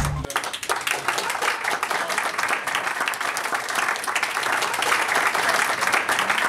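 An audience applauding steadily. Background music cuts off just as the applause begins.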